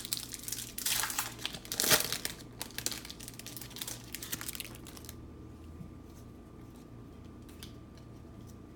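A trading card pack's wrapper being torn open and crinkled in the hands for about five seconds, loudest a second or two in, followed by a few faint clicks of card handling.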